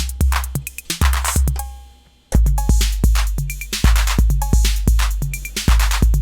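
TR-808 clone drum machine playing a programmed beat: long, deep bass-drum booms with hi-hats and pitched tom hits. The pattern stops about two seconds in and starts again a moment later.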